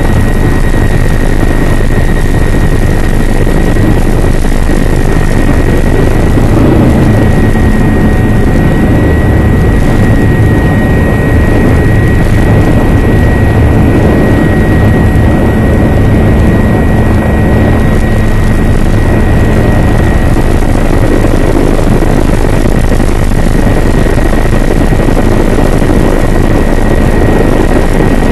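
Helicopter engine and rotor running loud and steady, with a constant high whine above the rumble.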